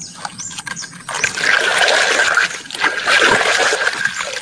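Water running and splashing over a plastic toy as it is washed clean of mud, starting about a second in.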